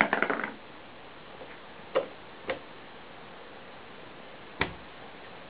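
Three short, light knocks, the last the loudest: a baby's hand bumping and pulling at a mirrored sliding wardrobe door.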